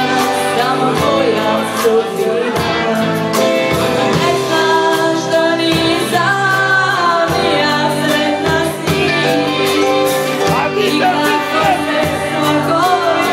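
Live band music with a woman singing into a microphone over drums and electric guitar, loud and continuous.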